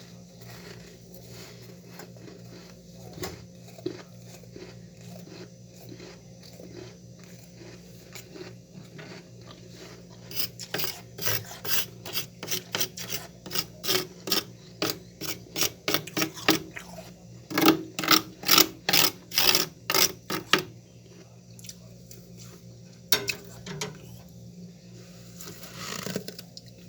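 Freezer frost being scraped in quick rasping strokes, about two a second, light at first and then loud for a stretch of about ten seconds before trailing off. A steady low hum runs underneath.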